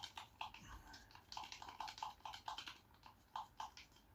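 Fibreglass filler mix being stirred by hand in its container: a faint, quick run of small clicks and scrapes, about three or four a second, as the stirring stick knocks and drags against the pot.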